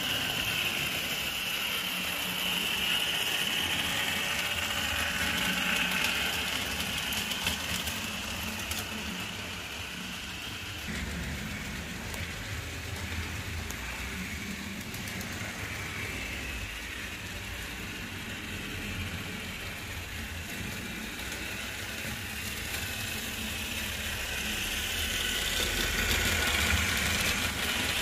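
HO-scale model train running on the layout track: a steady electric-motor whine with wheel and gear noise, louder at the start and again near the end.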